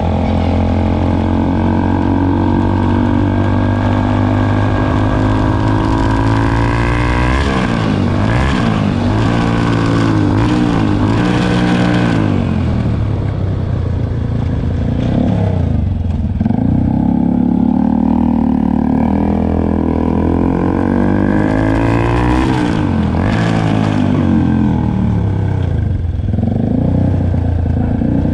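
Yamaha YZF-R25's parallel-twin engine heard through an open SC Project full-system exhaust with the dB killer removed, with the bike under way. It holds a steady note at first, then the revs climb and drop again and again with throttle and gear changes.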